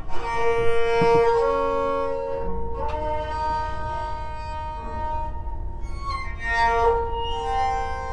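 A banjo bowed with a string bow: long drawn, scratchy notes rich in overtones, with the pitch changing every second or two and sometimes two strings sounding together. It has the creaky, gate-like sound of a bowed banjo.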